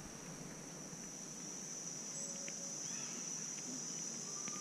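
Insects in the surrounding forest chirring in a steady, high-pitched chorus.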